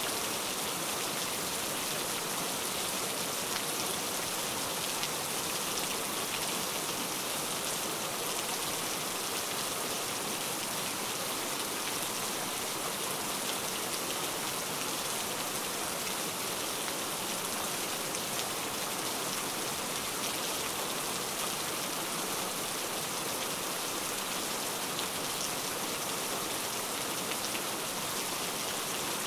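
Steady rain, an even hiss of falling rain with fine drop patter, unchanging throughout; it serves as the masking track of a subliminal affirmation recording.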